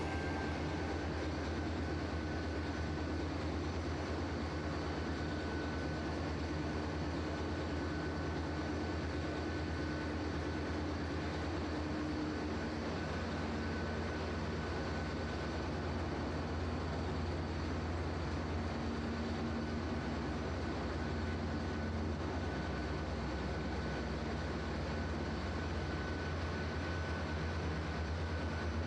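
Ship's engine-room machinery running: a steady low drone with a faint, steady high whine above it.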